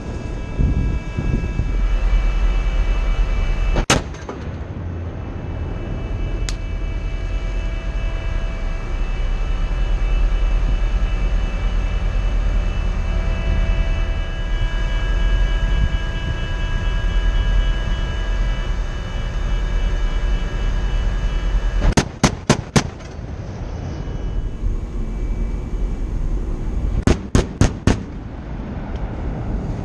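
Bofors 57 mm Mk 110 naval gun firing: a single shot about four seconds in, then two rapid bursts of four rounds each, one about three-quarters of the way through and one near the end. Between shots there is a steady low rumble with a faint steady whine.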